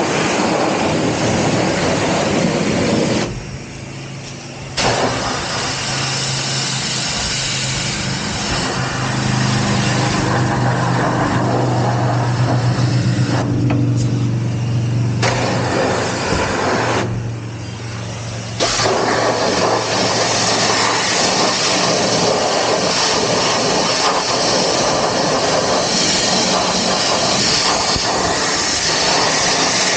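High-pressure wash wand spraying water onto a stripped motorcycle frame and engine: a steady loud hiss that cuts out briefly twice when the trigger is let go, with a low steady hum under it.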